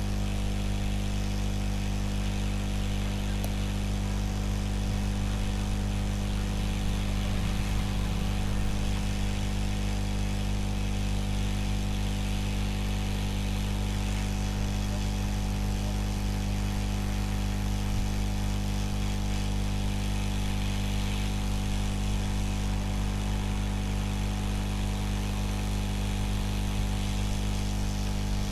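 Hot air gun of an SMD rework station blowing steadily, a continuous hum with an airy hiss, as it heats a phone's charging jack to melt the solder.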